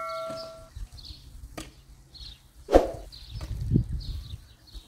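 A notification-style bell chime rings out and fades in the first moment. Then come faint high chirps repeating about every half second, a sharp knock nearly three seconds in, and a low rumble just after it.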